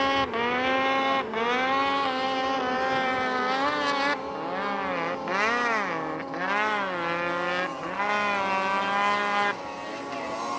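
Snowmobile engine revving, its pitch rising and falling in repeated swells about once a second, over a second engine running at a steady pitch. The revving stops near the end.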